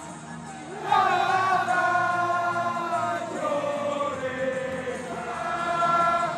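Large football crowd singing a chant together in long, held notes. The singing is lower for the first second, then comes back in loudly.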